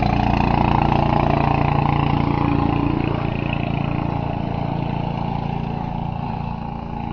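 An engine running steadily at an even speed, a low drone that holds one pitch and grows a little quieter over the second half.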